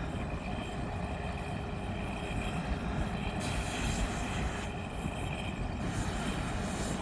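Steady distant drone of a race car's engine running at speed down the course.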